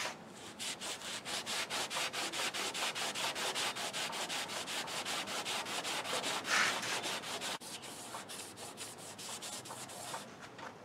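Cloth rag rubbed rapidly back and forth over the old painted steel of a 1929 Ford Model A body, polishing the paint, at about five strokes a second. The strokes grow a little softer in the last few seconds.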